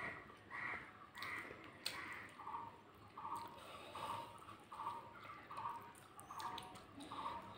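An animal calling in the background, one short call repeated at an even pace about every three-quarters of a second, with a few soft clicks from eating by hand.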